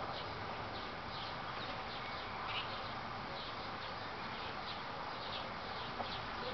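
Small birds chirping repeatedly over a steady haze of outdoor background noise.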